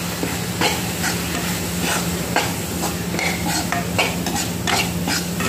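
Metal slotted spoon stirring and scraping chopped tomato and spices around a kadhai of hot oil, with irregular scrapes and clinks against the pan over a steady sizzle, as the tomato masala fries.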